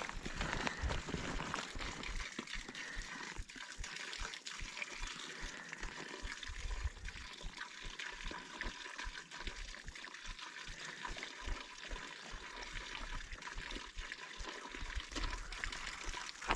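Water trickling and running steadily, as of a small mountain stream, with many small splashy ticks and irregular low rumbles on the microphone.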